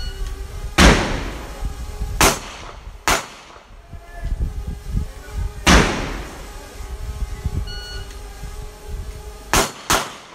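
Gunshots at a shooting range: six sharp shots at uneven gaps, the last two a quick pair about a third of a second apart near the end. The first and fourth ring on with a long echo.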